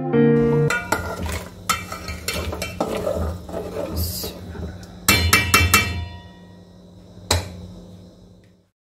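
A metal spatula stirring rice into hot mutton stock in an aluminium pot, scraping and knocking against the pot. About five seconds in there is a quick run of four or five taps, and one last knock follows a couple of seconds later.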